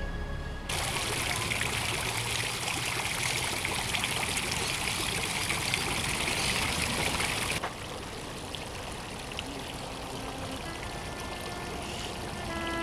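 Small garden fountain's water jets splashing into a stone basin: a steady rushing splash that starts abruptly about a second in and cuts off abruptly past the middle. A quieter, even rush follows, and background music comes back in near the end.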